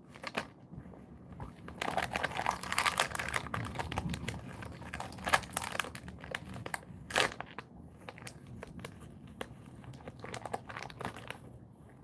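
Dog chewing and tugging at plastic-wrapped snack sticks in a torn packet: the plastic wrappers crinkle and crackle in dense bursts, busiest about two seconds in, with a couple of sharp louder crackles around five and seven seconds in.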